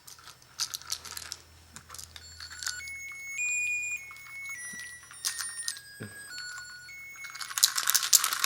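Keys jangling in short shakes, with a toy's electronic tune of clear beeping notes that step down in pitch through the middle. Near the end, loud continuous rattling sets in.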